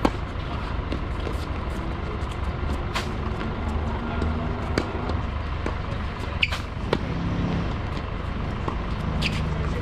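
Tennis balls struck by rackets and bouncing on a hard court: a series of sharp pops a second or two apart, over a steady low rumble.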